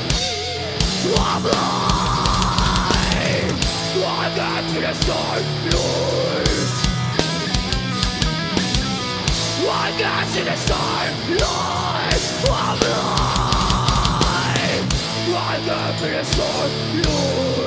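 Groove metal band playing live: distorted electric guitars and bass over a drum kit with a busy kick drum, at full volume.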